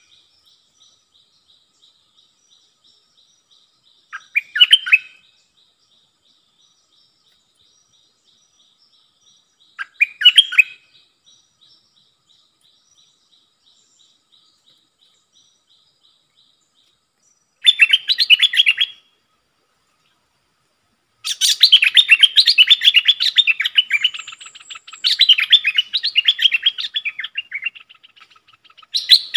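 Stripe-throated bulbul song: short bubbly phrases several seconds apart, then from about two-thirds of the way through a long, loud run of fast chattering song.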